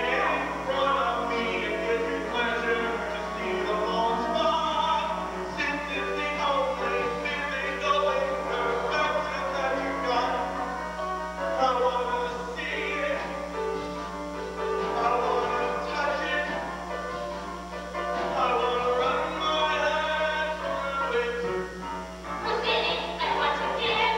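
Musical-theatre cast singing an ensemble number on stage, several voices together, with a steady low hum under it.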